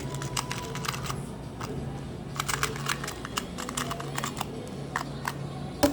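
A plastic twisty puzzle being turned fast by hand, its layers clicking in quick clusters, with one louder knock near the end.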